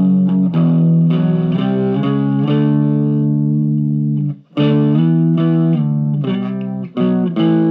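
Electric guitar played through a Marshall MG15MS II micro stack on its stock speakers, with some gain and the reverb switched off: held chords ringing out, a brief stop about four and a half seconds in, then shorter, choppier chords.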